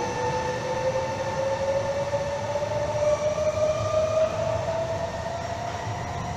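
Electric passenger train pulling out and accelerating away: its traction motors give a whine that climbs steadily in pitch, over a low rumble of wheels on rail. The sound fades near the end as the train draws off.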